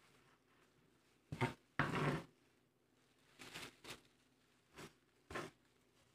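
Knife cutting on a cutting board: about six irregular knocks and taps, with one longer stroke about two seconds in.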